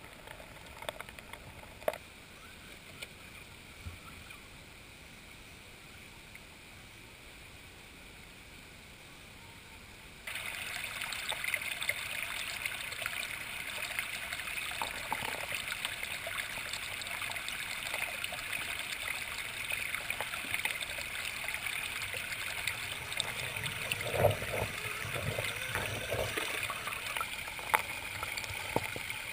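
Shallow, rocky creek water rushing and gurgling, cutting in suddenly about ten seconds in and then running steadily. Before it there is only a faint hiss with a few light ticks.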